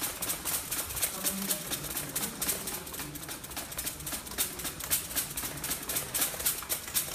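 Rapid, uneven clicking and rattling of a pipe-frame cart with roller tracks as it is rolled across the floor.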